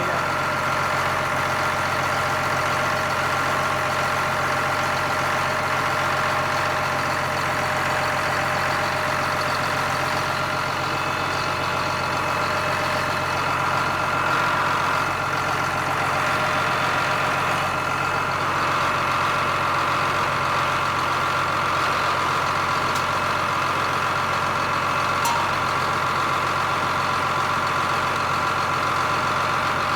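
John Deere 4755 tractor's six-cylinder turbo-diesel engine running steadily at an even speed, with a steady high whine over the engine note.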